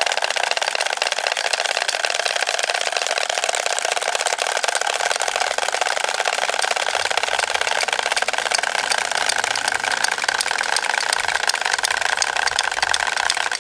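Wooden Easter rattles (Klappern) worked together, a continuous dense clatter of very rapid clicks.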